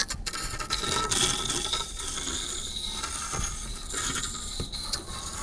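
Dry ice pressed against a metal saw blade, which vibrates as the ice sublimates. It makes a steady metallic squeal of several held high tones over a rough, rattling chatter.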